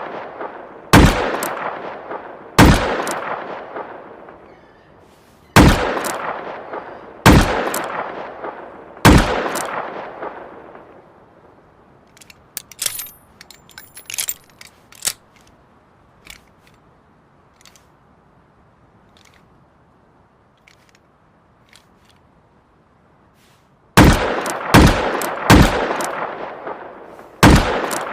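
Heavy-calibre revolver shots, each a sharp crack followed by a long echoing tail. A few single shots come one to two seconds apart, then a pause with a series of light metallic clicks, then about five shots fired in quick succession near the end.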